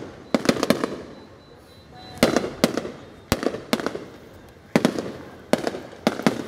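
Fireworks bursting overhead: about ten sharp bangs at irregular intervals, each echoing away.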